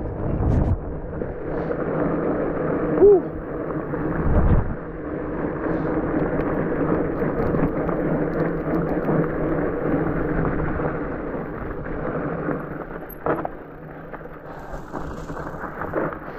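Rigid fat bike rolling over a rough dirt and rock trail: a steady tyre rumble with knocks and rattles from the bike, and a short squeak about three seconds in.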